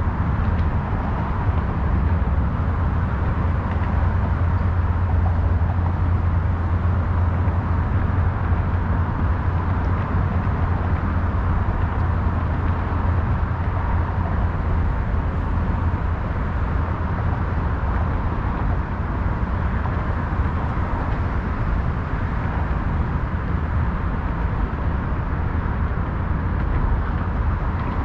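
Steady city ambience dominated by a continuous low rumble of road traffic, with no distinct events standing out.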